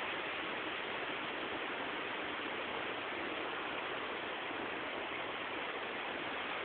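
Steady, even rush of running water, like a stream or spring flowing over rocks.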